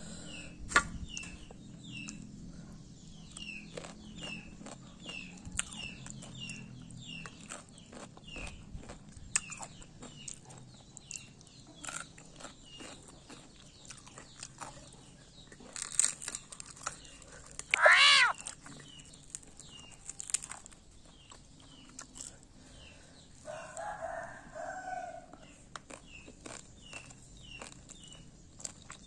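Chickens calling: a steady run of short high peeps about twice a second, a brief crow a little past halfway, and a two-note call near the end, with scattered sharp clicks.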